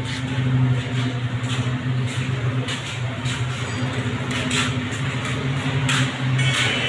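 Steady low hum of a fishing boat's engine running, under an even rushing noise.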